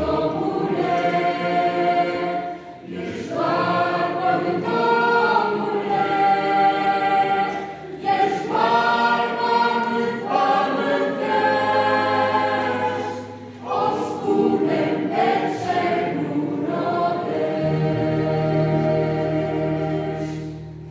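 A choir singing a Romanian hymn in sustained phrases with short breaths between them, accompanied by a string orchestra, fading out near the end.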